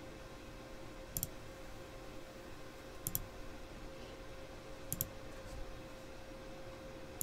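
Four computer mouse clicks, about two seconds apart, over a faint steady hum.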